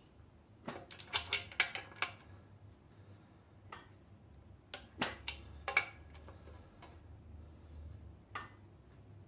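A wrench clicking and clinking against metal as small bolts on a drum-brake backing plate are tightened to torque spec, in a few short clusters of sharp clicks.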